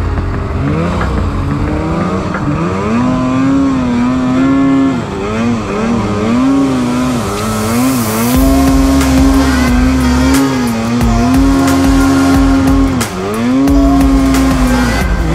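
Snowmobile's two-stroke engine being ridden hard: it revs up and down, then mostly holds a steady high pitch near full throttle, dipping briefly a few times when the throttle is eased.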